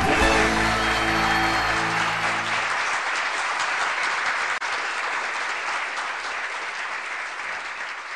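The last held chord of a TV show jingle rings out and stops about two and a half seconds in, over audience applause, which carries on and slowly fades out.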